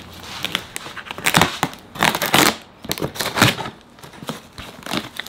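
Packing tape on a cardboard box being slit with a knife and torn open, in several short ripping scrapes of tape and cardboard.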